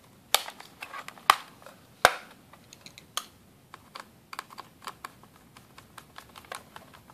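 Plastic RAM cover on the underside of an Asus Eee PC 1005HA netbook pressed into place, with three sharp clicks in the first two seconds. Then a run of small, quick ticks as a small screwdriver turns its retaining screw in.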